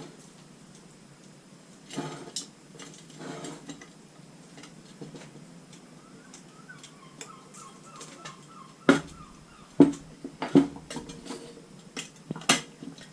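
Steel wire spokes clinking and knocking against a motorcycle wheel's rim and hub as they are laced in by hand: a scattering of sharp metallic clinks, the loudest in the second half.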